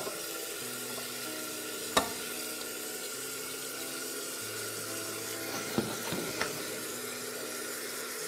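Tomato sauce sizzling steadily in a pot as drained pasta is tipped in and stirred, with a few sharp knocks of the colander and spatula against the pot.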